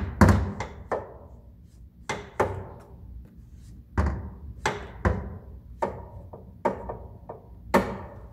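Car bonnet being unlatched and lifted: a run of about a dozen sharp clunks and knocks of the metal hood and its safety latch, irregularly spaced.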